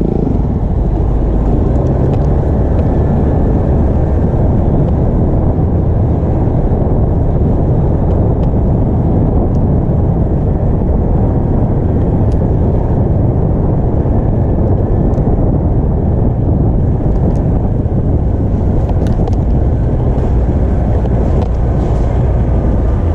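Steady, loud low rumble with no pitch and no breaks, with a few faint clicks.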